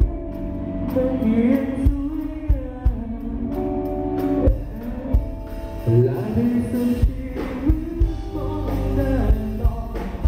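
Live rock band playing: a male lead vocalist singing over electric guitars, bass guitar and a drum kit, recorded on a phone.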